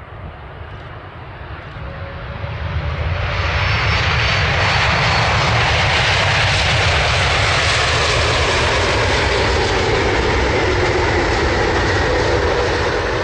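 Jet airliner's engines as it moves along the runway and passes. The noise grows louder over the first few seconds, then holds loud and steady, with faint whining tones that slowly fall in pitch as it goes by.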